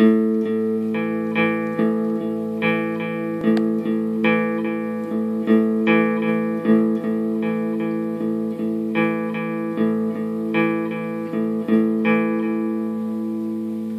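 Guitar playing a riff slowly, single picked notes about twice a second over a sustained low note, cut off abruptly at the end.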